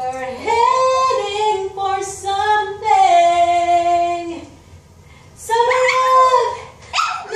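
A woman singing in long held notes while a small dog, a Shih Tzu, howls along with her, with a break of about a second just past the middle.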